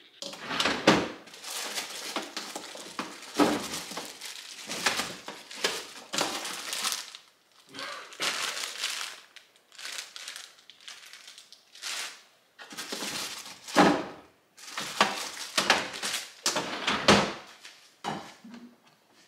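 Plastic zip-top bag crinkling and rustling as it is handled in spells, with a few dull knocks among it, as of refrigerator drawers and door being moved.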